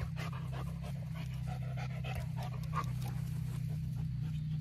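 A dog panting, over a steady low rumble.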